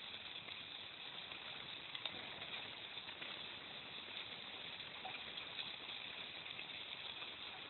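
Faint steady hiss of a sled's runners gliding over packed snow on a toboggan run, with a faint click about two seconds in.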